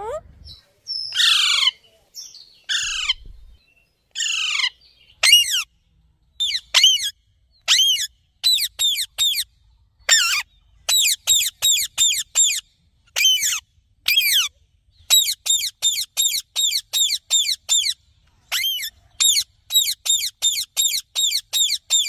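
Indian ringneck parakeet calling. It gives a few harsh, falling screeches, then runs of short, sharp calls repeated about four a second.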